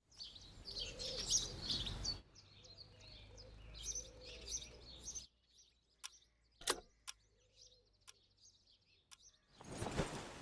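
Small birds chirping and twittering for about five seconds. A few light, separate clicks and knocks follow. A rushing noise starts near the end.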